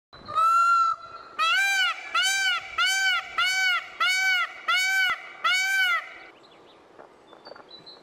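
Male Indian peafowl (peacock) honking: one long call, then seven short, loud calls in quick succession, each rising and falling in pitch. The calls stop about six seconds in.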